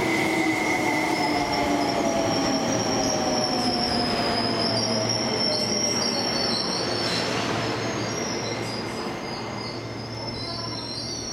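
Seibu 20000 series electric train pulling out and running past. Its hum slides down in pitch and a high steady squeal from the wheels rises over it. The noise eases off as the last car clears, about ten seconds in.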